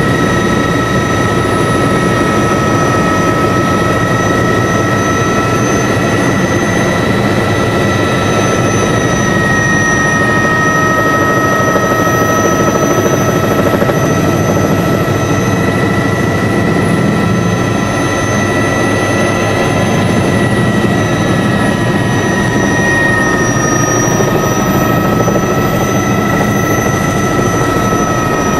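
Helicopter engine and rotor noise heard from inside the cabin in flight: a loud steady rumble under several high, steady whining tones that waver slightly in pitch.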